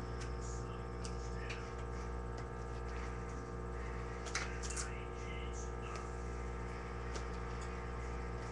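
Steady low electrical hum, with faint clicks and rustles of a playing card being handled and spun between the hands, two sharper clicks about four and a half seconds in.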